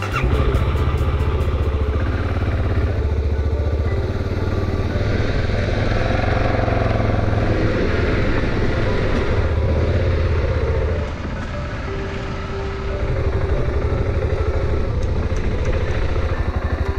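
Motorcycle engine running as the bike is ridden. It eases off briefly a little past the middle, then picks up again.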